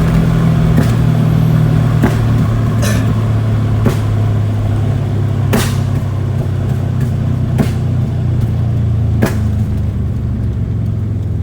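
Turbocharged Proton Wira 4G15 engine running steadily, heard from inside the cabin, with about seven short sharp bursts spread through it.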